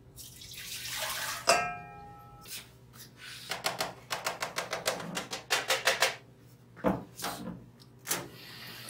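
Water poured from a stainless steel bowl into the metal tank of an automatic investment mixer, ending about a second and a half in with a ringing metallic clank of the bowl. Then a quick run of rustles and taps as powdered jewelry investment is shaken from a paper bag into the mixer, with a few knocks near the end.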